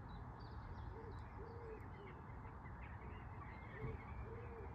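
Birds calling: short, low hooting notes repeated in small groups, with faint chirps from small birds, over a steady low rumble.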